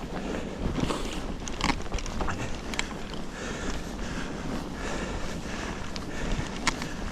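Mountain bike ridden slowly through deep snow: a continuous rustling noise of the tyres and bike, with scattered sharp clicks and knocks and a low wind rumble on the microphone.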